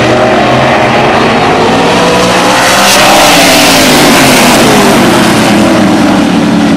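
A pack of open-wheel modified race cars running at speed. Their engine note swells as the cars pass close by about three seconds in, and the pitch drops as they go by.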